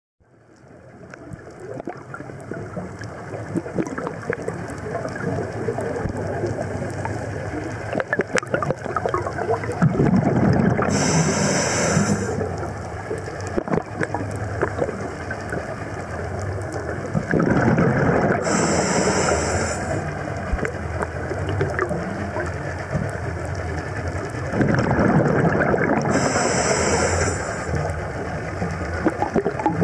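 Underwater sound recorded on a scuba dive: the diver's regulator exhaust bubbling out in three gurgling surges about seven seconds apart, one per breath, over a steady crackling hiss of the reef water. The sound fades in over the first couple of seconds.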